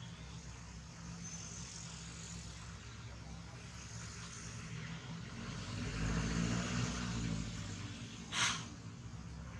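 A motor vehicle engine running nearby, growing louder about six to seven seconds in and then fading, with one short, sharp hiss about eight seconds in.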